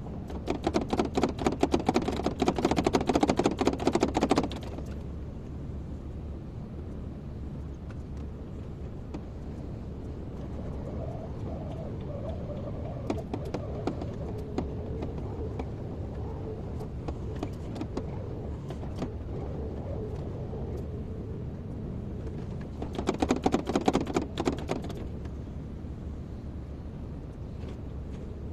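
Excavator at work: a steady engine hum throughout, with two loud bursts of rapid clattering, one at the start lasting about four seconds and a shorter one near the end.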